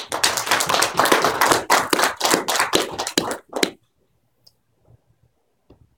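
A small audience applauding: dense clapping for about three and a half seconds that thins out into a few last claps and stops.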